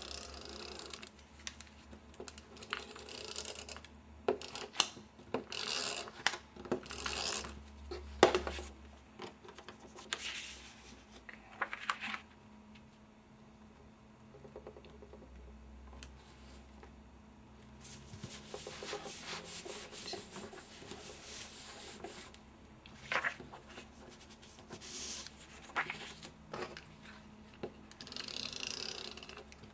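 Handheld adhesive tape runner drawn across card stock and vellum in short scratchy strokes, mixed with sheets of paper and card being handled and pressed down, and now and then a light tap.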